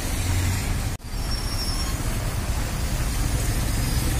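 Road traffic on a wet avenue: a steady low rumble of engines under a hiss of tyres on wet asphalt. The sound briefly drops out about a second in.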